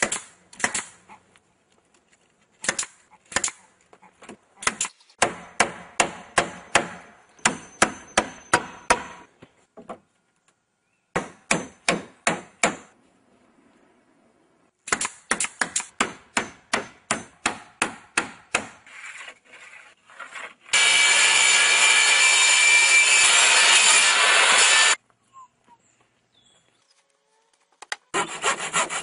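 Nail gun firing nails into weathered wooden boards in quick runs of sharp shots, about four a second, with pauses between runs. About three-quarters of the way through, a steady hiss runs for about four seconds and cuts off suddenly.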